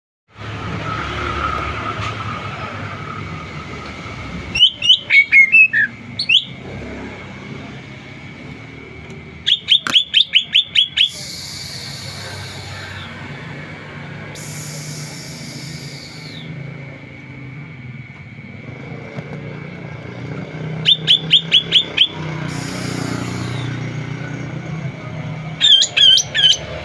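Sumatran cucak ijo (green leafbird) calling to a rival: four bursts of rapid, sharp repeated notes alternate with three harsh, hissing buzzes. A steady thin high tone and a low rumble run underneath.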